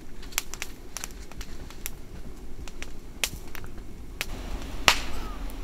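Wood campfire crackling, with irregular sharp pops over a low steady hiss; one louder pop comes near the end.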